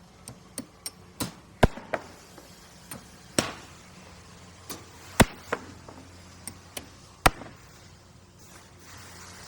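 Construction-site work noise: about a dozen sharp, irregular knocks and bangs, like tools striking hard material, with three louder bangs spread through. A faint steady low hum runs underneath, and there is no drilling.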